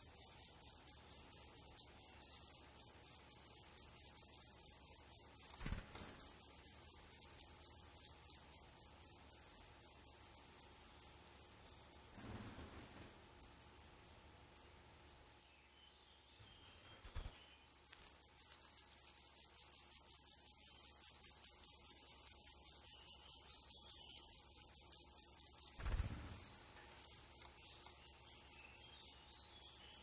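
High-pitched, fast, regular chirring like a cricket's stridulation, going on steadily. It stops suddenly about fifteen seconds in and starts again about three seconds later. Dull thumps come about six, twelve and twenty-six seconds in.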